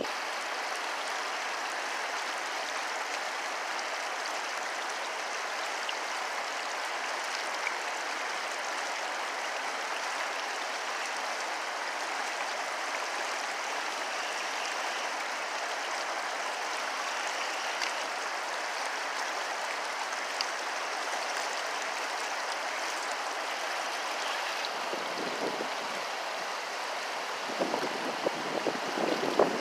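Steady rushing hiss of fast-flowing water running over rocks. Gusts of wind buffet the microphone with low rumbles near the end.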